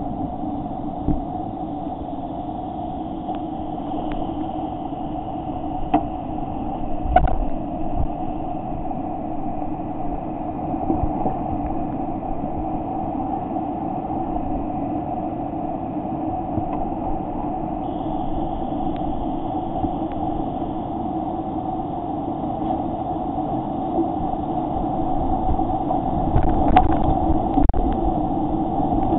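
Steady rush of a steep creek's whitewater rapids close by, with a few knocks scattered through.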